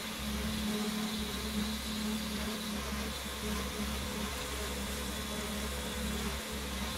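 Concrete mixer truck running steadily with a constant low drone while it discharges wet concrete down its chute.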